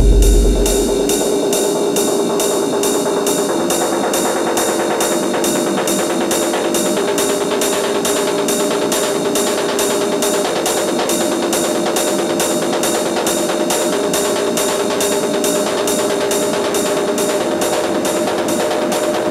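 Industrial techno track in a breakdown: the kick drum and bass drop out right at the start, leaving a fast, even pattern of high percussion ticks over held synth tones that step in pitch every few seconds.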